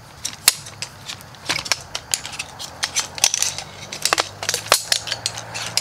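Folding frame poles of an ultralight backpacking camping chair clicking and clacking as they are pulled apart and knock together, a quick irregular run of sharp knocks.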